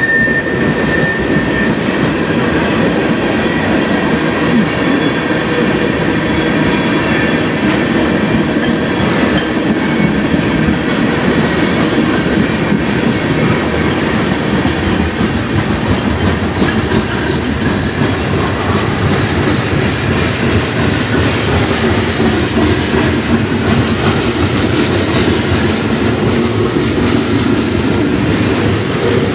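Freight train of tank cars rolling past close by, its steel wheels clattering steadily on the rails. A thin high whine fades out in the first couple of seconds.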